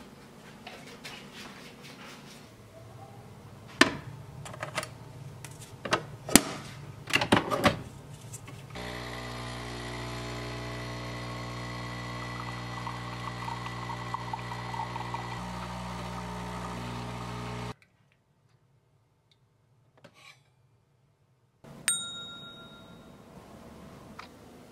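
Dishes and utensils clinking sharply on the table for the first several seconds. Then a capsule espresso machine's pump runs with a steady hum for about nine seconds as it brews coffee into a cup, cutting off suddenly, and a single ringing clink comes near the end.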